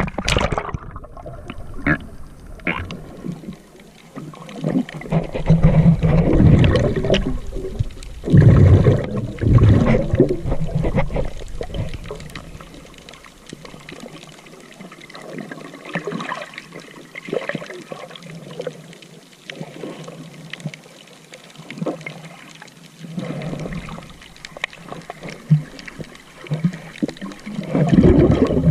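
Seawater sloshing and splashing close to the microphone, in uneven surges that are loudest from about five to eleven seconds in.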